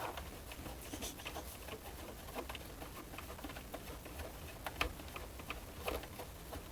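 Light, irregular clicks and scratches of a screwdriver and screws worked against the plastic case of a 1980s boombox, with the sharpest click about five seconds in.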